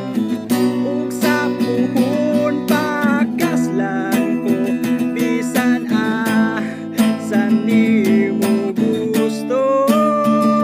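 A young man singing a Bisaya love song while strumming an acoustic guitar, ending on a long held note.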